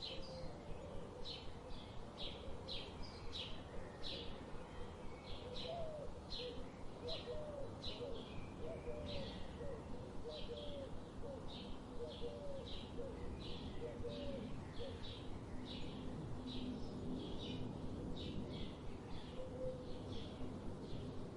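Wild birds singing: one bird repeats short high chirps, about two to three a second, and beneath it a lower cooing call comes in a series of short gliding notes through the first half.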